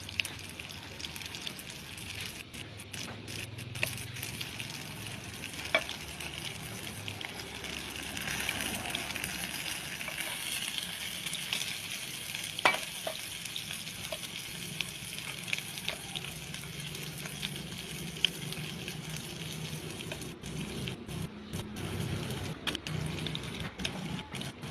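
Food frying in a pan with a steady crackling sizzle, broken by a few sharp clicks.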